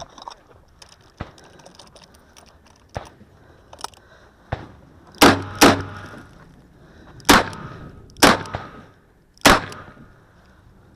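Five handgun shots fired close by: two about half a second apart, then three spaced about a second apart, each ringing out briefly. Fainter sharp cracks come before them.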